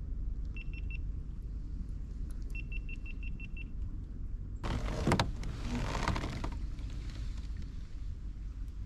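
Short high electronic beeps from the kayak's fish finder, four and then a quick run of about eight. About halfway through, a two-second whir of line running off a fishing reel with a sharp click, as on a cast.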